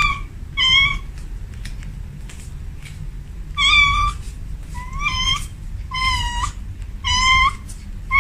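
Cat meowing again and again: about seven high-pitched meows, each bending a little in pitch and some held longer than others, over a low steady rumble.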